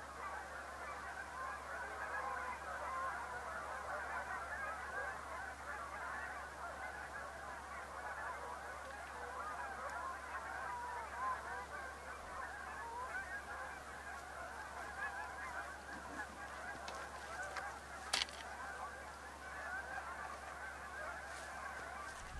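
A large flock of geese honking: many overlapping calls in a steady chorus. A single sharp click near the end.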